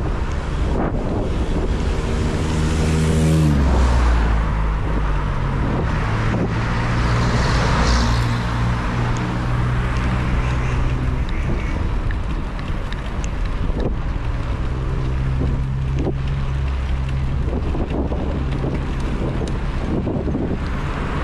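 Wind rushing over the microphone during a bicycle ride, with a motor vehicle's engine humming steadily close by, its pitch dropping a little about three and a half seconds in.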